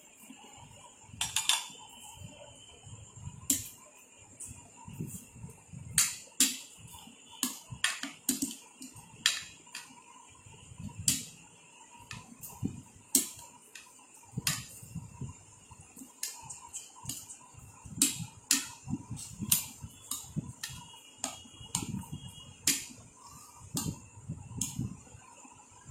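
A spoon clinking and knocking against a bowl while cheese is stirred into the sweet corn mix: irregular sharp clicks, a few every couple of seconds, with softer low knocks between them.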